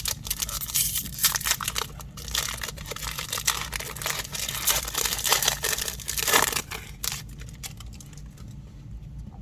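Plastic trading-card pack wrapper being torn open and crinkled by hand, a dense crackling that eases off about seven seconds in.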